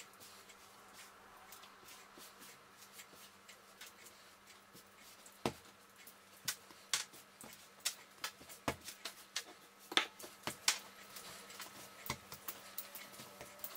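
Butter cookie dough kneaded by hand on a kitchen countertop: faint handling at first, then from about halfway an irregular run of short sharp taps and knocks as the dough is pressed, turned and lifted against the counter, loudest about two-thirds of the way in.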